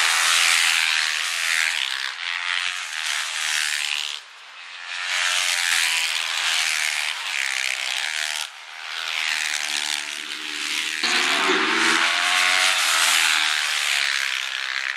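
Supermoto motorcycle engines racing past at high revs. The pitch rises and falls as bikes go by, several times over.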